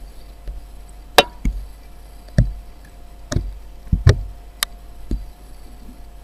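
Computer mouse and keyboard clicking irregularly, about ten sharp clicks of uneven loudness, over a faint steady hum.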